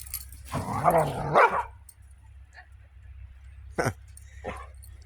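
A puppy barking: one loud, drawn-out bark lasting about a second near the start, then two short, sharp sounds later on.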